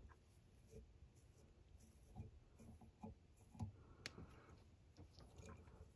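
Near silence with faint rustles and soft ticks of fingers twisting ice dubbing onto the tying thread, and one sharp click about four seconds in.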